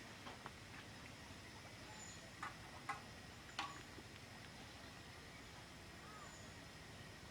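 Quiet outdoor background hiss, with three or four short, sharp clicks a little before the middle and a few faint, brief high chirps like small birds.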